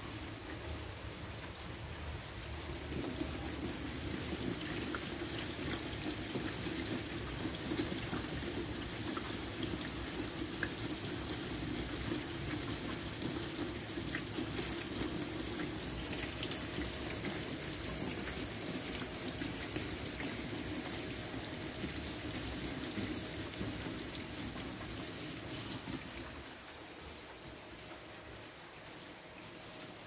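Steady heavy rain falling on a wet, puddled walkway, drops splashing into standing water. It grows louder about three seconds in and eases off again near the end.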